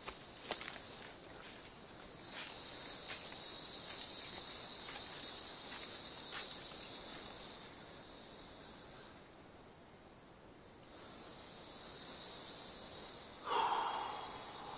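High-pitched insect chorus of forest buzzing: it swells in about two seconds in, drops away around nine seconds and comes back about eleven seconds in. Footsteps crunch through dry leaf litter and twigs with small snaps in the first few seconds, and a short mid-pitched sound comes near the end.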